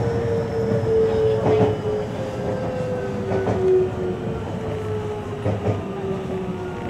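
Series 521 electric train slowing down, heard from inside a motor car: the traction motors and inverter whine with a slowly falling pitch as the train brakes, over steady running noise. The wheels click over rail joints a few times.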